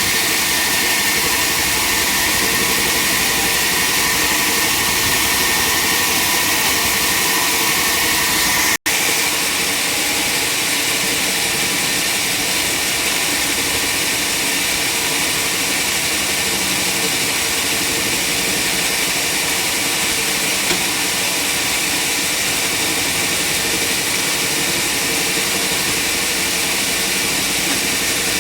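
Sawmill machinery running with a loud, steady mechanical noise, with a momentary break about nine seconds in.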